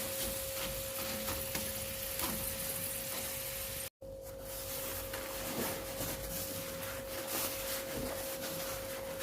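Crackers frying in hot oil: sizzling with scattered small crackles, over a steady humming tone. The sound drops out for an instant about four seconds in.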